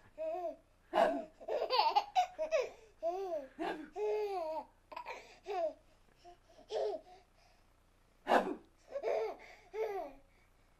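A baby of about eight and a half months laughing and babbling in short high-pitched bursts, quieter for a couple of seconds past the middle, then a sudden loud laugh about eight seconds in.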